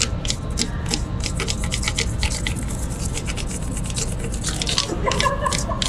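Rapid scratchy strokes of a drawing tool rubbed back and forth across paper while tracing, several strokes a second.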